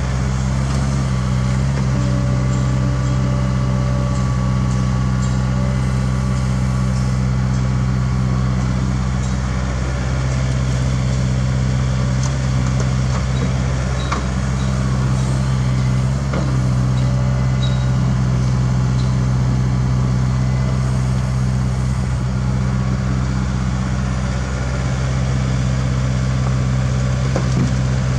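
Diesel engine of a CAT 305.5E2 mini excavator running steadily at constant speed while it works its hydraulics loading soil into a dump truck, with a few light knocks around the middle.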